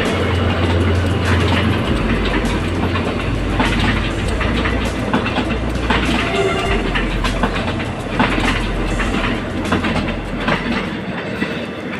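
Commuter train passing close by, its wheels clacking over the rail joints over a low rumble that dies away about a second before the end.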